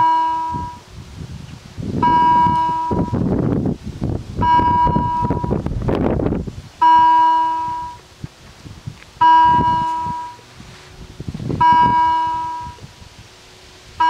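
Level-crossing warning bell striking single ringing strokes, one about every two and a half seconds, each dying away: the crossing is active, warning of an approaching train. Bursts of low rumbling noise fill the gaps between strokes.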